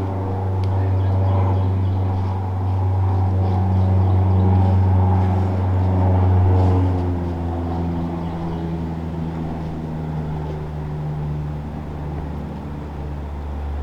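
An engine running with a steady hum that eases off slightly about seven seconds in.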